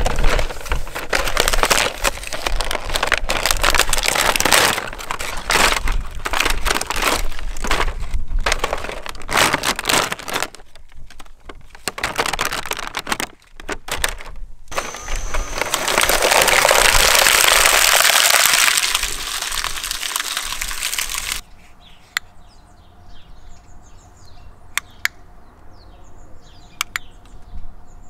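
A toy being fed through a shredder: a dense run of cracking and crunching as it breaks apart for about ten seconds. After a short lull comes a steady loud rush lasting several seconds, then only a few scattered single cracks near the end.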